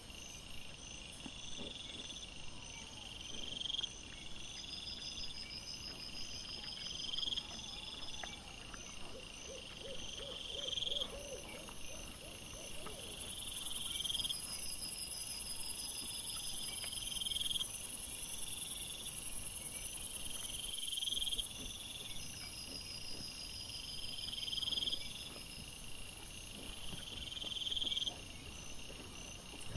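Chorus of night-singing insects: a swelling chirp that repeats about once a second, over a fainter, higher continuous trill.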